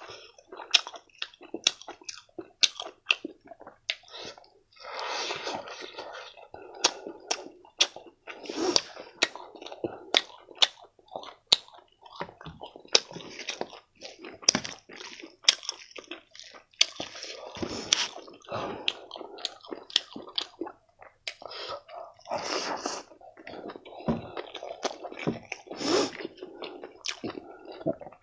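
A person chewing and biting food close to the microphone, wet mouth sounds with many sharp clicks and crunches scattered throughout.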